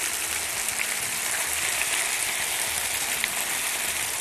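Grated raw potato rösti mass sizzling in hot oil in a frying pan: a steady hiss with a couple of small pops.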